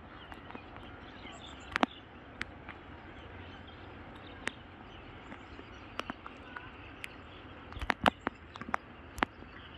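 Steady hiss of rain, with scattered sharp taps close to the microphone and a brief cluster of heavier knocks near the end.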